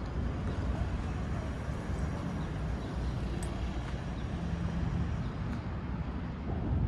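Steady low outdoor rumble of background traffic noise.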